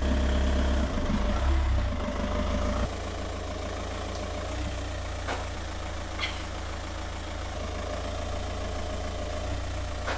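Volkswagen Jetta's engine idling, louder for the first few seconds and then steady at a lower level after an abrupt drop.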